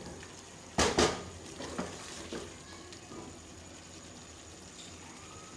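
Chicken and onions frying in a pressure cooker, stirred with a wooden spoon: two loud knocks of the spoon against the pot about a second in, a few softer knocks and scrapes after, over a faint steady sizzle.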